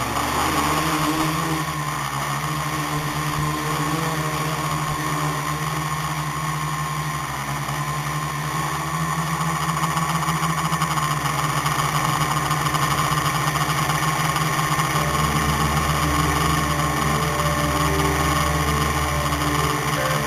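The electric motors and propellers of an RCExplorer V2.5 tricopter running at flying power, heard from on board the craft as a steady, loud buzzing whine.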